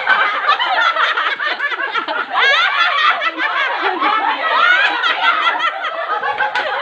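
A group of people laughing together, many voices overlapping.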